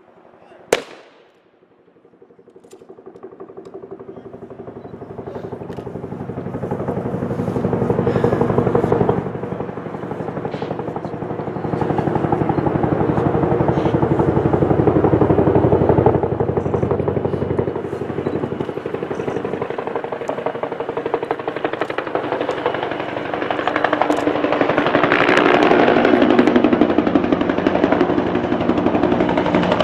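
A single sharp rifle-volley crack less than a second in, then a Huey-type helicopter approaching and flying over, its rotor beating rapidly. The rotor grows steadily louder over the first several seconds and stays loud, peaking in the middle and again near the end.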